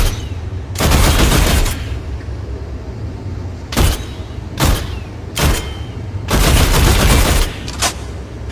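Machine pistol firing: single shots and short strings, with two sustained full-auto bursts of about a second each, one near the start and one about two-thirds of the way through.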